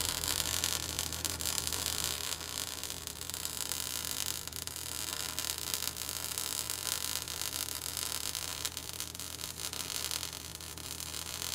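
Steady static hiss over a low, even hum.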